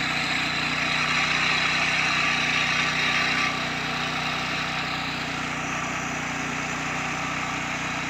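Agricultural spraying drone (DJI) flying, its rotors humming steadily with a rushing hiss that is louder for about the first three and a half seconds, then eases somewhat.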